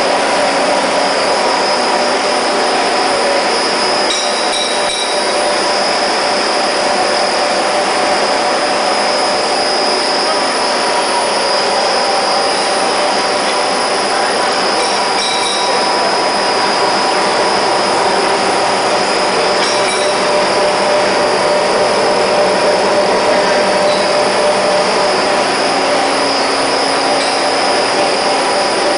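Fish feed extrusion line running: loud, steady machine noise from its motors, gear reducers and screw barrels, with several steady whining tones and a few light clinks.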